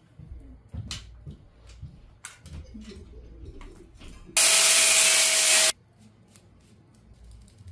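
Hands and tools handling a bicycle clutch cable and its housing, with scattered rubbing and clicks. Past the middle, a loud steady hiss starts and stops abruptly and lasts about a second and a half.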